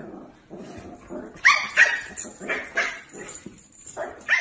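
Dogs barking and yipping over a food bowl: a string of short, sharp barks, the loudest pair about one and a half seconds in, more coming at the end.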